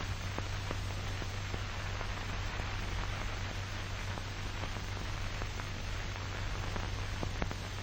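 Steady hiss and low hum of an old 1940 film soundtrack, with faint scattered crackles and no other sound.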